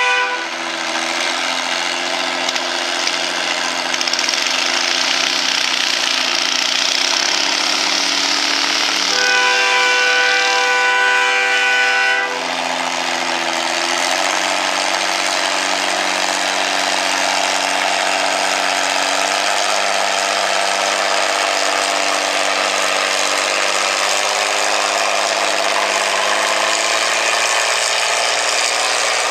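Antique farm tractor engine running at full throttle under heavy load as it drags a weight-transfer pulling sled, the engine note holding steady with slight drifts in pitch. A loud, steady high tone sounds over it for a few seconds about a third of the way in.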